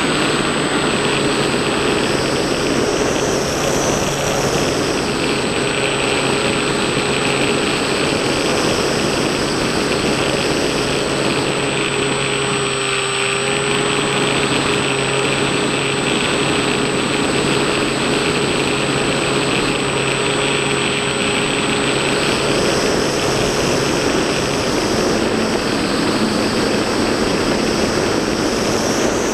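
Electric motor and propeller of a Bixler-style foam RC plane in flight, heard through its onboard camera's microphone: a steady motor drone and a high whine over rushing wind. The motor tone dips briefly about halfway through, and the wind rush swells and fades as the plane banks.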